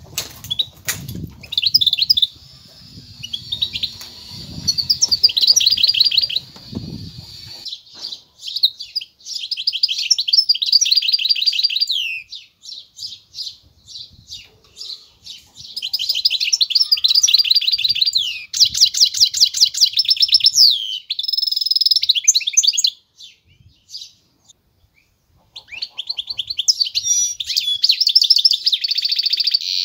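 European goldfinch × canary hybrid (a 'mule') singing: long runs of rapid trills and twittering phrases. The song breaks off briefly about 12 and 23 seconds in, then starts again.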